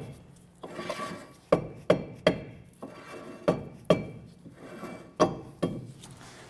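Hammer blows on a stuck brake rotor to break it loose from the wheel hub: about eight sharp strikes, several in quick pairs, each with a short metallic ring.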